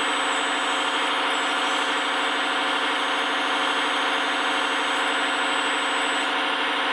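Radio-controlled model construction machine running with a steady, even idling engine note.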